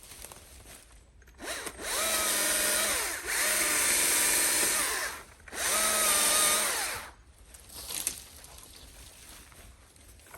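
Battery-powered electric saw run in three bursts, its motor whine rising as each starts and falling as it stops, cutting a buck-rubbed sapling.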